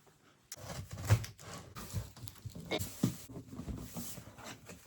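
Parcels of computer parts being dragged and handled: scraping with irregular knocks and thumps.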